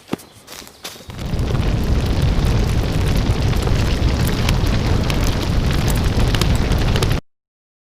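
A few light ticks, then about a second in a loud, dense rumbling roar starts. It is heaviest in the low end, holds steady for about six seconds, and cuts off suddenly.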